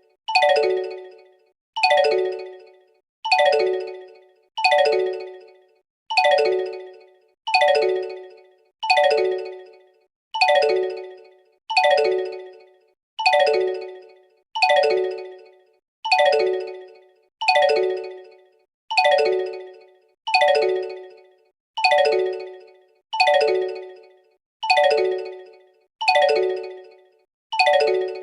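Android Samsung phone ringtone for an incoming call: one bright chime of several tones together, struck about every second and a half and dying away before the next, repeating over and over.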